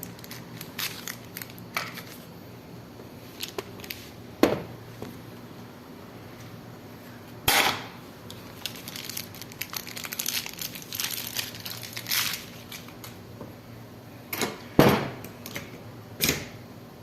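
Handling noise of a new ball bearing and the fan motor's rotor being readied for fitting: scattered clicks, rustling and a few sharp knocks of metal parts on the work surface.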